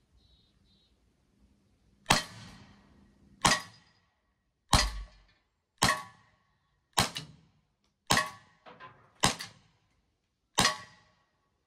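Eight shots from a T4E Walther PPQ M2 CO2 real-action marker, .43 calibre, fired at a steady pace of about one a second. Each is a sharp crack with a short tail, and the eighth empties the magazine.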